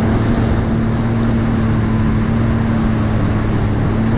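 Jet ski engine running steadily at around 40 mph, a constant drone over an even rushing noise of wind and water.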